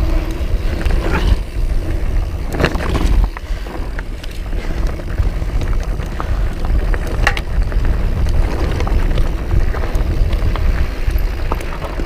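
Specialized plus-tyre full-suspension mountain bike riding down a rocky trail: a steady low rumble of wind and tyres on the ground, with frequent sharp rattles and clacks as the bike rolls over loose rock.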